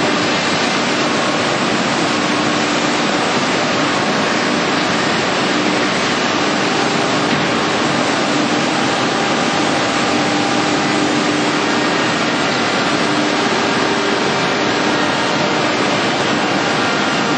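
Stemas edge sanding line running: a steady, loud machinery noise with faint steady hums underneath.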